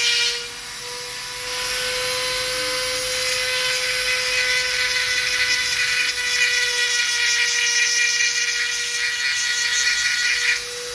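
Flexible-shaft rotary tool running with a steady high whine, its bit grinding an agarwood (gaharu) chip to clear away the plain wood and leave the resin. The grinding eases off briefly about half a second in and again just before the end.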